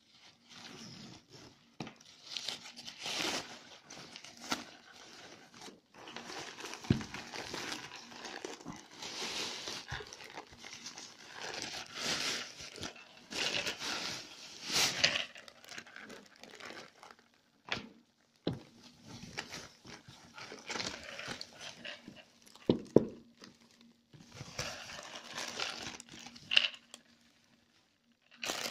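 Handling noise of unpacking: a mesh drawstring bag and paper or plastic wrapping rustling and crinkling around a plastic full-face snorkel mask, in irregular bursts with a few knocks of the mask's plastic shell.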